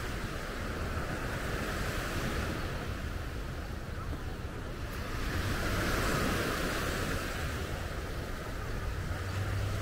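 Gentle surf washing up on a sandy beach, swelling louder about halfway through as a wave breaks, with wind rumbling on the microphone.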